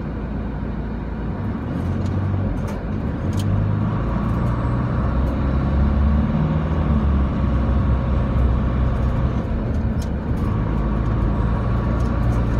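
Car engine and road noise heard from inside the cabin as the car pulls away from a stop in traffic, growing louder over the first few seconds and then running steadily, with a few light clicks.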